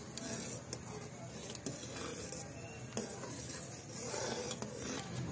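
Metal ladle stirring thick boiling kadhi in a metal kadai, a soft churning with a few light clicks of the ladle against the pan, over the bubbling of the curry as it comes to a simmer.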